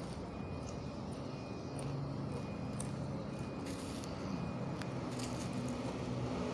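Steady low engine rumble of a motor vehicle running close by, with faint scattered clicks over it.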